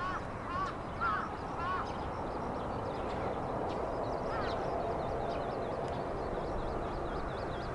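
Birds calling: a run of short repeated chirps in the first two seconds, then a fast, high, twittering song from about the middle on, over a steady low rumble.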